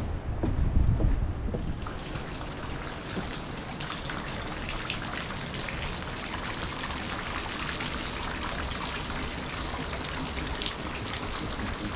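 Steady rushing noise of a waterfall. Wind buffets the microphone with low rumbles in the first couple of seconds.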